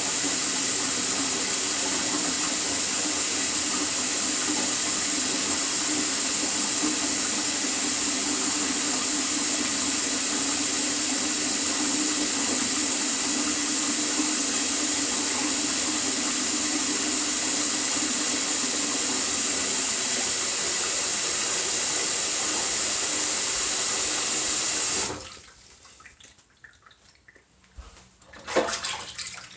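Kitchen tap running steadily into a sink, then shut off suddenly about 25 seconds in, followed by a few small drips and clicks.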